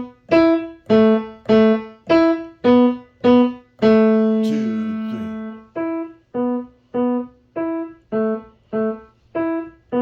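Piano playing a short beginner piece in separate notes, roughly two a second, loud at first with one long held note about four seconds in, then the phrase repeated more softly from about six seconds in.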